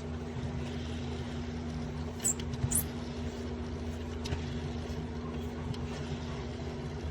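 Steady low hum with a few faint small clicks or ticks.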